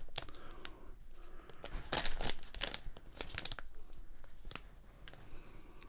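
Small packaging packet crinkling and tearing as it is handled and opened by hand, in several bursts of crackly rustling.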